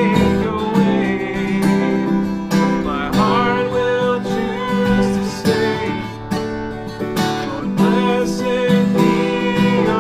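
Instrumental worship music: a steady strummed accompaniment holding chords in a break between sung lines of a worship song.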